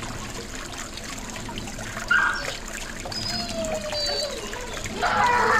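Small garden-pond fountain jet and tile cascade splashing and trickling steadily into the water. Dog barking breaks in about five seconds in, louder than the water.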